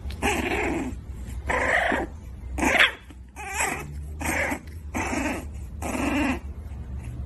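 A young puppy crying in seven short vocal cries, about one a second, over a steady low hum.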